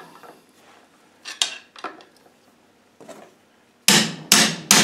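Light metallic clinks of a steel pry bar being set against a gearbox gear, then, near the end, three sharp ringing hammer blows on steel in quick succession, trying to drive off a gear that is stuck tight on its splines.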